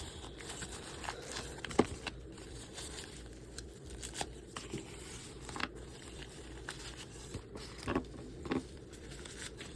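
Handling noise as a fabric carrying bag and its packaging are opened and rummaged through: rustling with scattered light clicks and taps, the sharpest about two seconds in.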